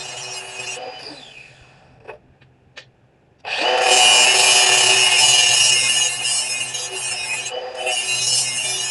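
Power tool grinding or sanding steel hand tools during finishing: a steady abrasive run that stops about a second in, two small clicks in the pause, then the tool starts abruptly again and keeps running.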